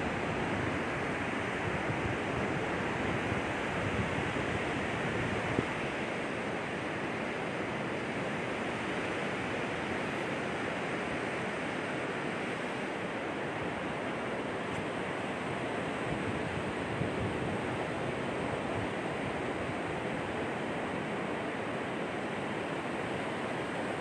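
Ocean surf breaking on a sandy beach: a steady wash of wave noise.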